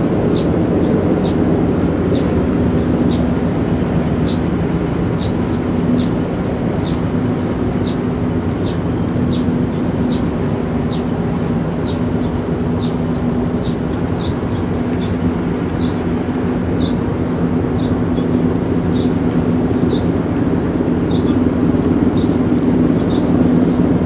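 A steady, loud mechanical drone with a low hum, and a short high chirp repeating about twice a second over it.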